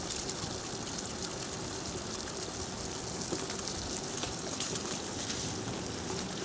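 Wheels of a dog-drawn scooter rolling over a wet paved road: a steady hiss with scattered small ticks.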